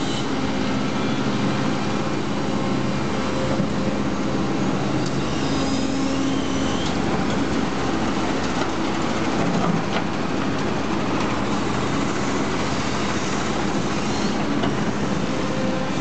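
Doosan tracked excavator's diesel engine running steadily under load as it swings and tips a bucket of soil into a MAZ dump truck's bed about halfway through, with the truck's diesel engine running alongside.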